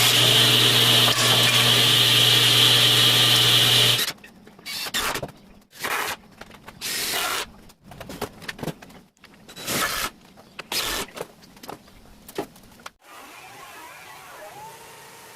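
Frontier OS27 portable band sawmill running and sawing through a cherry board, cutting off abruptly about four seconds in. Irregular short knocks and scrapes follow for several seconds, and then a faint steady noise.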